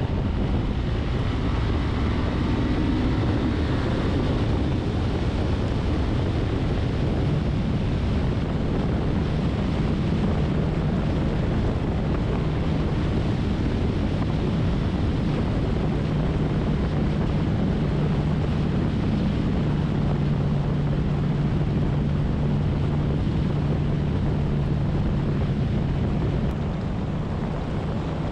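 Wind rumbling on the microphone of a moving road vehicle, with a steady low engine hum through most of it. The level eases slightly near the end.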